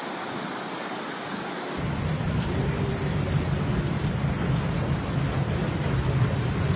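Steady rushing noise of a heavy rainstorm, which changes abruptly about two seconds in to a deeper, rumbling rush.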